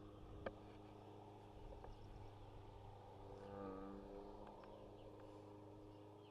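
Near silence: a faint steady low hum, with one sharp click about half a second in and a brief, faint pitched sound in the middle.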